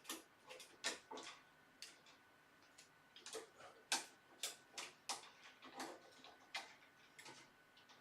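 Faint, irregular clicks and taps, about one or two a second, from hard plastic and metal parts being handled as a CPU heatsink is worked loose from a desktop motherboard.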